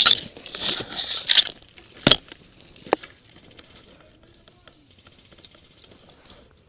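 Hissy rustling for about a second and a half, then two sharp cracks about a second apart, then faint rustling.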